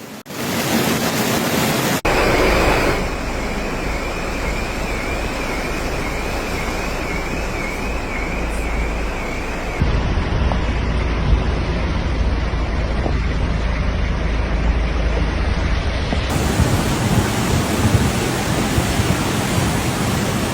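Rushing floodwater: a loud, steady roar of noise across several short clips that change abruptly. A faint high warbling tone runs through the noise in the first half.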